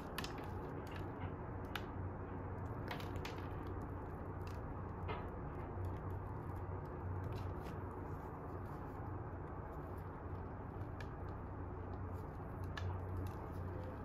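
A chewy tangzhong soboro bun being torn apart by hand: scattered small crackles and clicks from the crumbly streusel topping breaking, with soft squishy tearing of the bread, over a steady low hum.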